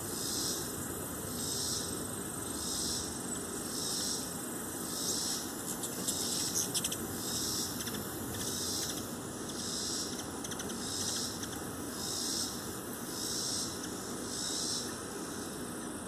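Insects singing high-pitched in a chorus that swells and fades about once a second, with a short run of clicks about six seconds in.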